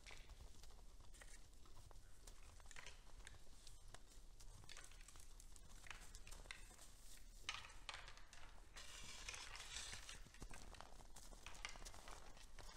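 Faint rustling, tearing and crackling of hay as red deer pull mouthfuls from a hay bale, a string of short scattered crackles with a denser rustle about nine seconds in.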